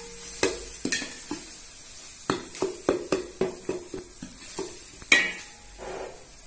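Perforated steel skimmer ladle scraping and knocking against the side and bottom of a large metal pot as thick ginger-garlic paste is stirred in oil. A run of short clinks and scrapes, about three a second in the middle, with the loudest knock about five seconds in.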